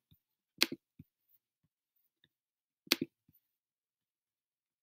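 A few sharp clicks of a computer mouse button: a quick pair just over half a second in, a fainter single click about a second in, and another quick pair about three seconds in, with near silence between them.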